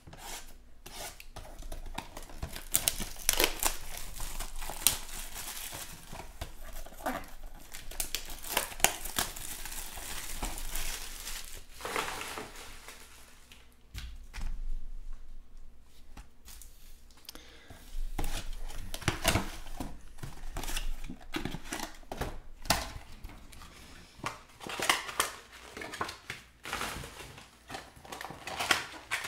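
Plastic shrink-wrap crinkling and tearing and cardboard boxes being opened and handled, in irregular rustling bursts with small clicks: 2020 Topps Finest baseball boxes being unwrapped.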